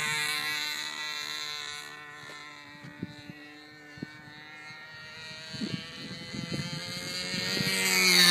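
Restored WiK Olympic model biplane's motor and propeller buzzing in flight, fading as the plane flies off and growing louder again as it comes back toward the end.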